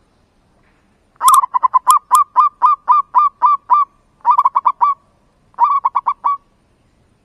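Zebra dove (merbuk) singing loudly. One long run of short, clipped cooing notes, about four a second, is followed by two shorter, quicker runs.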